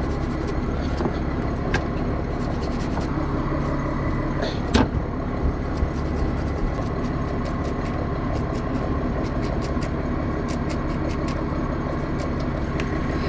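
An engine running steadily, a low rumble with a constant whine over it. A few sharp knocks of the knife against the wooden cutting board, the loudest about five seconds in.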